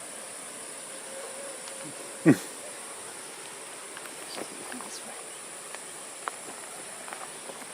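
Steady high-pitched drone of insects, such as cicadas or crickets, in rural countryside. About two seconds in comes one short, loud sound that falls in pitch, followed by scattered faint ticks.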